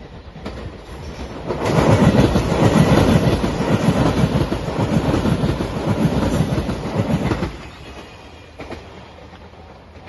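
Five-car JR Shikoku 8000 series electric limited express passing close by, its wheels clattering rapidly over the rails. The noise builds about a second and a half in and drops away sharply about seven and a half seconds in.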